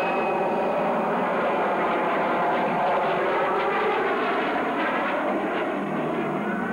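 Aircraft engines running in a steady, loud drone with many layered tones, easing slightly near the end.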